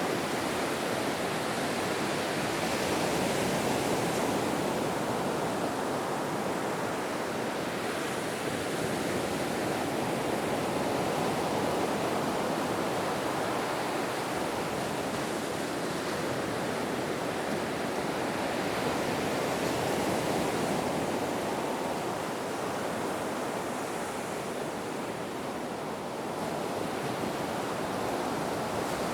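Surf on a beach: a continuous wash of breaking waves that slowly swells and eases.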